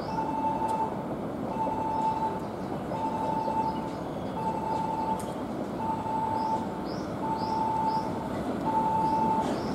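Odakyu 3000 series electric train pulling slowly into a station platform, its low running rumble growing louder as it comes in. Over it a single-pitch electronic beep repeats about once a second, the platform's warning of an arriving train.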